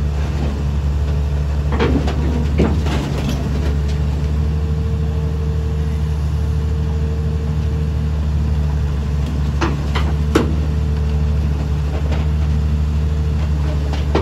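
XCMG XE215C crawler excavator's diesel engine running steadily under load as the machine climbs onto a lowbed trailer, with a steady whine coming and going. Sharp metal clanks from the steel tracks on the trailer come about two seconds in and again about ten seconds in.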